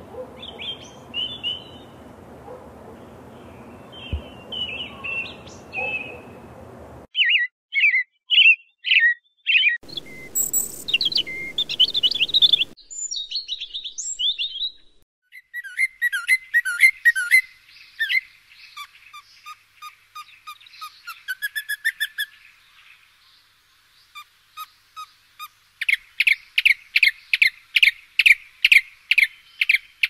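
European robin singing: separate phrases of high, thin warbled notes with short pauses between them, and near the end a fast, even series of about four notes a second.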